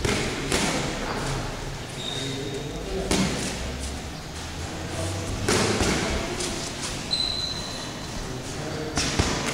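Boxing sparring: a handful of sudden padded thuds from gloved punches and footwork on the ring canvas, with a cluster about five and a half seconds in and another loud one near the end.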